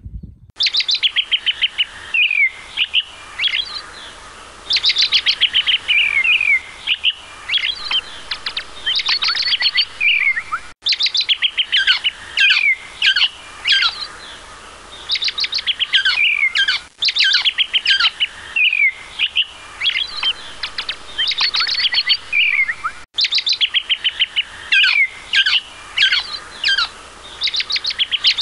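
Songbird singing a repeated phrase: a fast run of short notes ending in a downward-slurred note, again and again every second or two.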